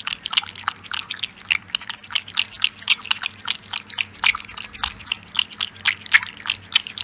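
A cat chewing close to the microphone: quick, irregular crunching clicks, several a second.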